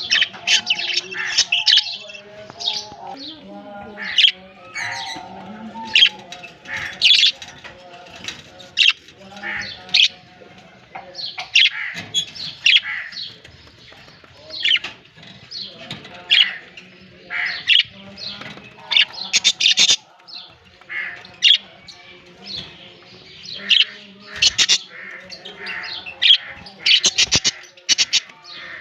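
Budgerigars chirping: a steady stream of short, high chirps, a few every second, with somewhat louder calls now and then.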